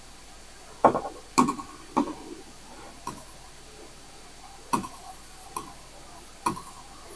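A stylus tapping against an interactive smart-board screen while writing and pressing on-screen buttons: about seven short, sharp taps at irregular intervals.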